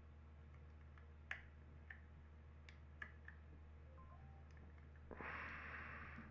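Near silence over a low steady electrical hum, with a few faint clicks of small plastic headset parts being handled, and about a second of soft hiss near the end.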